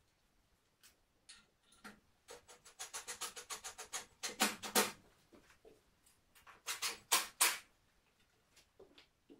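IKEA KRABB mirror panels being fitted onto their wall fixings by hand: a quick run of clicks, then a few short scraping rubs in two clusters.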